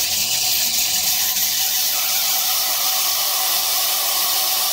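Ford F-150 4.2L V6 engine running with a loud, steady, high-pitched screech from its serpentine belt drive: a dry pulley bearing, which the mechanic takes to be most likely the idler pulley.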